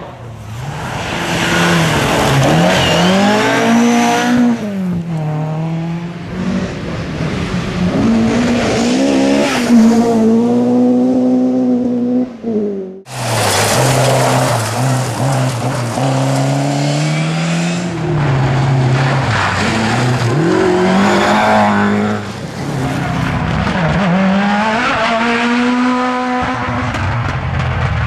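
Ford Escort rally cars driven flat out on a loose gravel stage, engines revving hard and rising and falling in pitch through repeated gear changes and lifts, over tyre and surface noise. The sound breaks off briefly about 13 seconds in, where one car's run cuts to another's.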